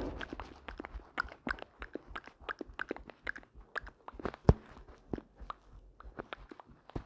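Irregular light taps and clicks, several a second, with a louder knock about four and a half seconds in.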